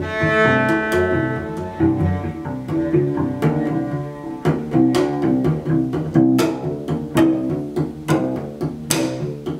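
Solo cello played with the bow: a fast passage of short notes, many sharply attacked. The playing stops at the very end.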